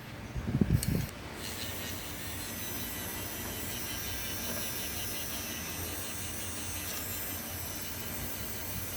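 A couple of handling knocks, then a small electric fan motor starts about a second in and runs steadily with an even, high whirring hiss.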